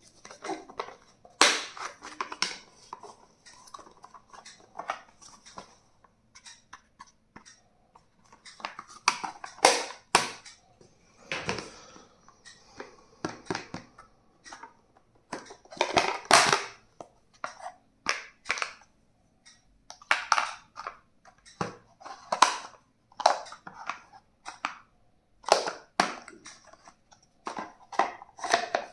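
Stationery items and their plastic packaging being handled and unboxed: irregular clicks, taps and rattles, with bursts of crinkling or rustling.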